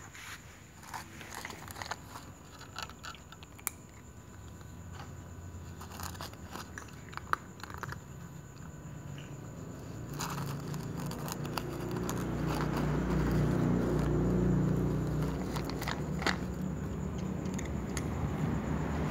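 A cat crunching dry kibble from a plastic container, with scattered sharp clicks and crackles. About halfway through, a low rumble comes in and grows louder.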